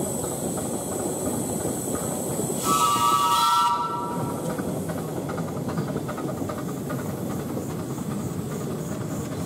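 7¼-inch gauge miniature steam locomotive gives one chord whistle blast, about a second long, about three seconds in. It then pulls away from the station with a steady rush of steam.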